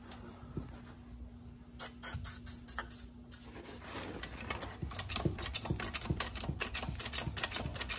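Quick metallic clicking, about three to four clicks a second, from a jack being worked under a railcar journal box. It starts sparsely and grows steadier and louder from about four seconds in. A faint steady hum stops partway through.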